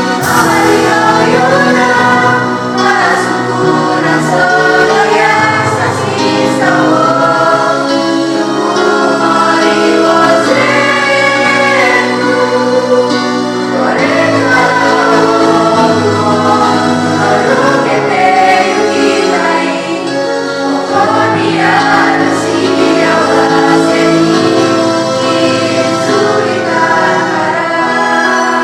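A vocal group singing together in unison, a one-part arrangement still being rehearsed, with a steady low accompaniment beneath the voices.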